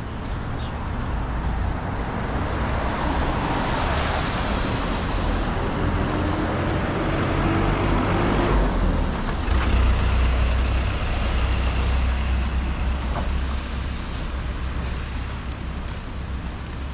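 Road traffic: a vehicle passing, its noise swelling to a peak around the middle and fading toward the end, over a steady low rumble.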